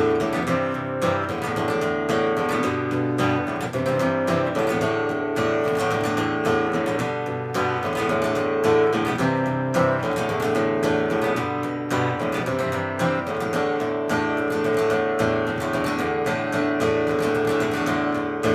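Acoustic guitar strummed in a steady rhythm, an instrumental passage with no singing.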